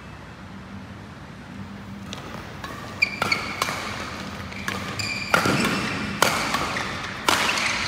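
Badminton doubles rally: a string of sharp racket hits on the shuttlecock at irregular spacing, starting about two seconds in, with short squeaks of shoes on the court floor between hits.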